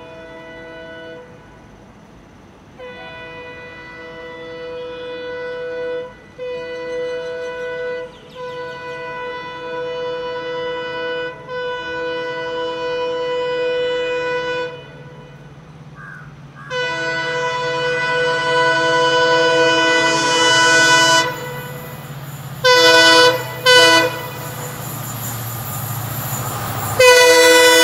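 WDP4D diesel locomotive's multi-note horn sounding in a string of long blasts, with two short toots about two-thirds of the way through and a louder long blast near the end, as the train approaches. Under the horn the locomotive's EMD two-stroke diesel engine hum grows steadily louder as it nears.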